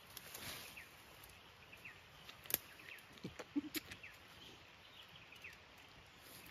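Quiet bush ambience: a small bird calls again and again with short falling chirps. A couple of sharp clicks and faint rustles come from a deer carcass being cut up by hand.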